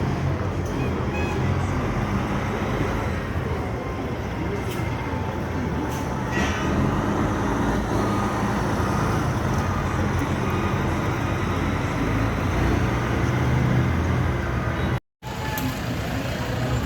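Busy street ambience: steady road traffic with voices in the background. The sound drops out completely for a moment near the end.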